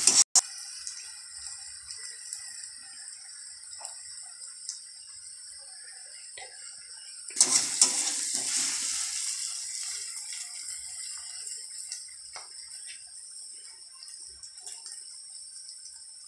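Onions and garlic sizzling steadily in hot oil in a kadai. About seven and a half seconds in, a spatula stirs them and scrapes the pan, and the sizzle briefly grows louder, then slowly fades.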